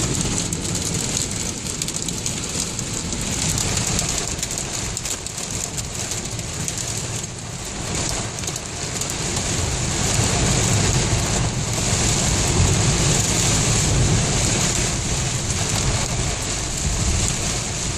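Heavy downpour drumming on a car's roof and windshield, heard from inside the cabin, over the low rumble of the car driving through water. The rain grows louder about ten seconds in.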